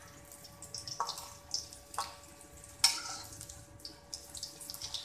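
Egg-coated koftas deep-frying in hot oil: steady sizzling with irregular crackles and pops, the sharpest pop nearly three seconds in. A faint steady hum runs underneath.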